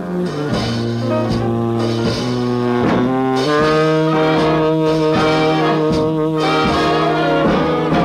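1940s R&B jazz band playing from a 78 rpm record: a horn section of saxophones and brass holds long sustained chords over a stepping bass line, settling on a held chord about three and a half seconds in.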